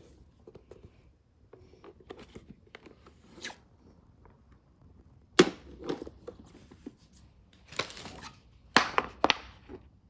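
Handling noises from unboxing: a string of small clicks and rustles of plastic parts and packaging, with a sharp knock about five and a half seconds in and a few more knocks near the end.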